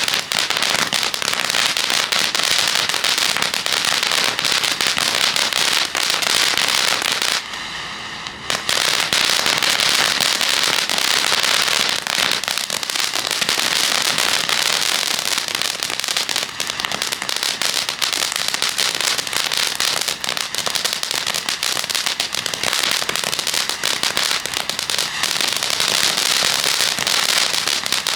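Ground fountain firework burning with dense, continuous crackling. It briefly drops quieter for about a second, around 7 to 8 seconds in, then resumes at full intensity.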